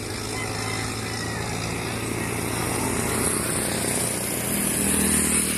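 Road traffic: a small motorcycle's engine running as it draws nearer along the road, growing louder toward the end.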